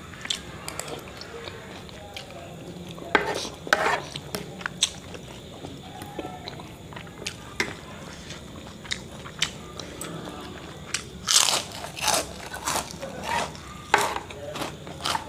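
A person eating chicken noodles and meatballs: chewing, with a fork and spoon clicking and scraping on a ceramic plate in scattered short strokes. There are louder clusters of eating noises about three seconds in and again about eleven seconds in.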